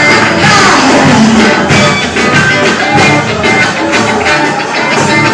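Loud worship music with a steady beat.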